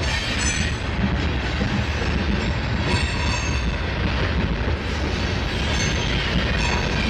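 Freight train of covered hopper cars rolling past: a steady rumble of steel wheels on the rails, with thin high wheel squeals now and then.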